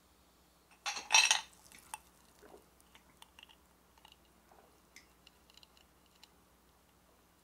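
Ice in a drinking glass: a loud clattering rattle of ice against the glass about a second in, then scattered light clinks and ticks of ice on glass as the glass is handled.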